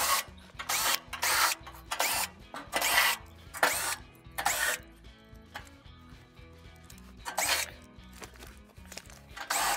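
Cordless drill with a hex socket backing out the 7 mm bolts that hold a gas range's cooktop panel, running in about eight short bursts with a lull of a couple of seconds in the middle.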